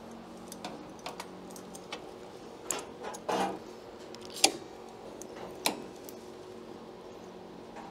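Sheet-metal repair patch being fitted to a rusted window sill with pliers-type clamps: scattered sharp metallic clicks and clinks with a short scrape, the loudest click about four and a half seconds in and another near six seconds.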